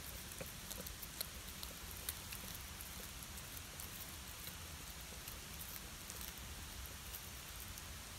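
A cat chewing and crunching through a whole river fish, bones and all, in small irregular crackling clicks, most of them in the first couple of seconds, over a steady background hiss.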